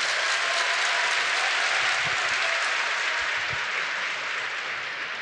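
A large crowd applauding, a dense sustained clapping that gradually dies down toward the end.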